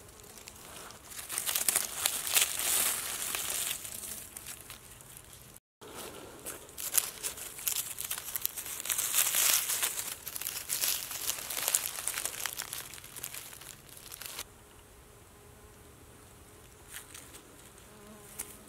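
Dry fallen leaves rustling and crackling as a hand works through the leaf litter to pick a mushroom, with a brief break about a third of the way in. The rustling stops about three-quarters of the way through, leaving a faint steady buzz.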